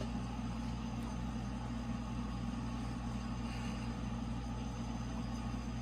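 Steady low hum, even throughout, with no distinct knocks or tool strikes.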